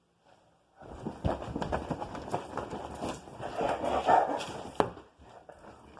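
A rapid, dense flurry of thuds and knocks that starts suddenly about a second in and eases near the end.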